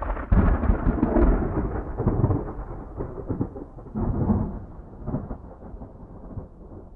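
A low rolling rumble that starts suddenly, swells again about one, two and four seconds in, then dies away gradually.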